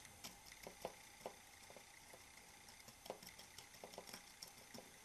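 Near silence with a few faint, light ticks as the tip of a flux pen is dabbed onto the solder pads of a circuit board.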